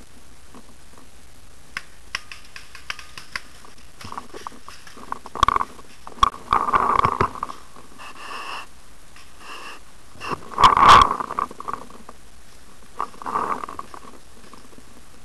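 Handling noise from a camera mounted on a paintball marker as the gun is carried and moved: scattered light clicks, then a few rough scuffing bursts and knocks. The loudest is a thump about eleven seconds in.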